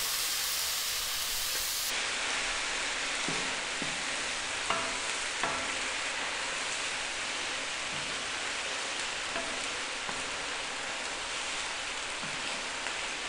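Onions and tomatoes sizzling steadily in hot oil in a nonstick wok as they are sautéed and stirred with a wooden spatula, with a few faint knocks of the spatula against the pan. The vegetables are still frying and giving up their moisture.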